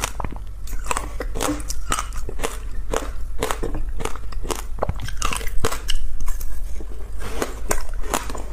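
Close-miked crunching of ice between the teeth: chewing with dense, irregular cracks several times a second.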